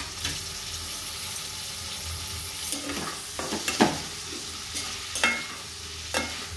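Potatoes and tomato pieces sizzling in oil in a metal kadhai while a spatula stirs them, with a few sharp knocks and scrapes of the spatula against the pan.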